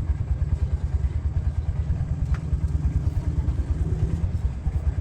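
An engine running steadily with a fast, even low throb, and a single sharp metallic click about halfway through.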